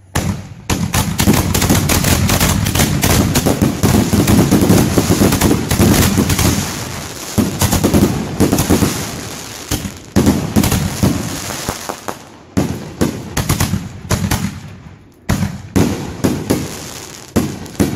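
Consumer fireworks going off in a rapid, dense barrage of bangs and crackles. It thins out about twelve seconds in into separate volleys of bangs with short gaps between them.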